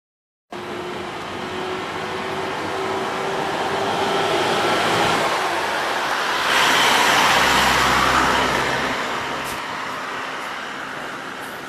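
Road traffic: a steady rush of passing vehicles that starts suddenly about half a second in, swells to its loudest with a low rumble about six and a half seconds in, then slowly fades.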